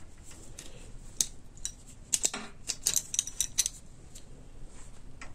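Steel wire rope and its metal fittings being handled, giving scattered small metallic clicks and jingles, busiest about two to four seconds in.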